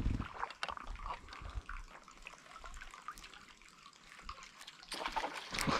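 Small water sounds around a kayak: drips and trickles off the paddle, with a few light knocks, and a louder splash near the end.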